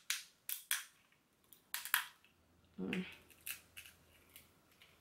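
Snow crab leg shells cracking and snapping as they are broken open by hand and bitten, a string of sharp cracks at irregular intervals.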